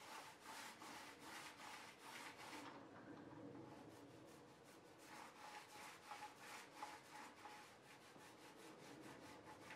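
Small paint roller rubbing up and down a plaster wall, faint and in quick repeated strokes, as it spreads paint.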